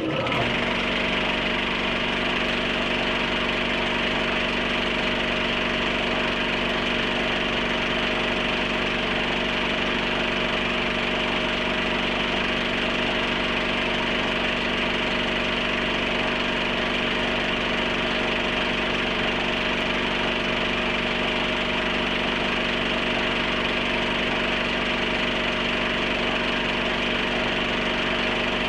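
Film projector running: a steady mechanical whir with a constant hum and hiss, unchanging throughout.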